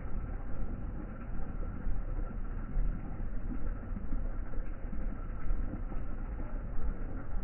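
Wind buffeting a phone microphone: an uneven low rumble that swells and drops in gusts, over a faint hiss.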